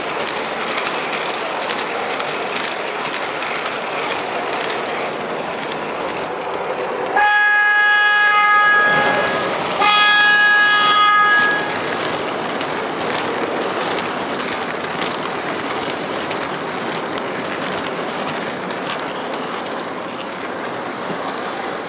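MTH R40 subway model train running on its track with a steady rumble. About seven seconds in its onboard sound system sounds the horn twice, two pitched blasts of about two seconds each, close together.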